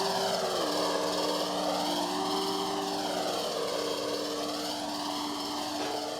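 Electronic sound-art music: a dense, noisy drone swept by a slow, repeating filter sweep about every two to three seconds, under a steady low hum and held synthesizer notes that step down in pitch.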